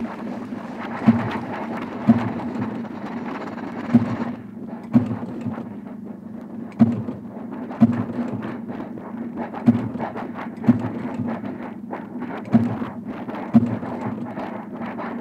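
Printing-press machinery sounds used as the rhythm of an experimental composition: a heavy thump about once a second over continuous clattering, hissing mechanical noise.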